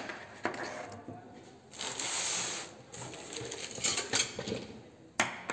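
Hand tools and packaging being handled and set down: light clinks and clicks of metal and plastic, with a brief rustle about two seconds in and a sharper click near the end.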